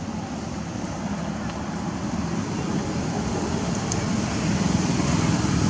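A low engine rumble from a motor vehicle, growing steadily louder.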